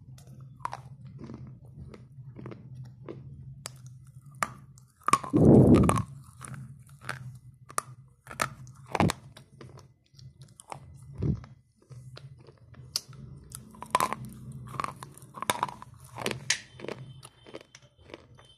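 Slate pencils being bitten and chewed close to the microphone: an irregular run of sharp, dry crunches and snaps, the heaviest about five seconds in.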